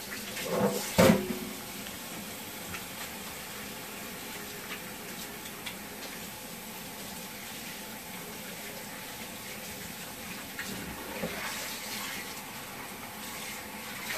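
Kitchen sink tap running steadily as hands are rinsed under it, with a couple of knocks about a second in.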